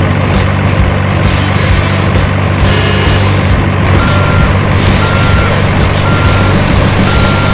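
Dubbed-in truck sound effect: a steady heavy engine drone, joined about four seconds in by a reversing alarm beeping about once a second.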